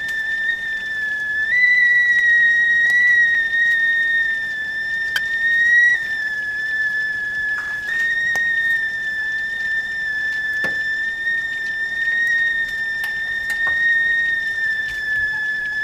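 Whistling tea kettle at the boil: one continuous high whistle with overtones. Its pitch steps up slightly about a second and a half in and settles back down around six seconds in.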